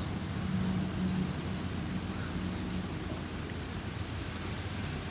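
Steady outdoor background noise with a low rumble, and a faint, thin high chirp repeating roughly once a second.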